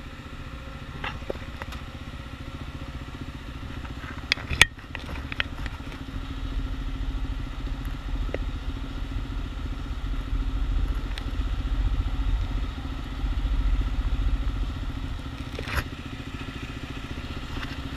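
Motorcycle engine idling steadily, with a few sharp clicks and rustles from handling a tank bag about four to five seconds in.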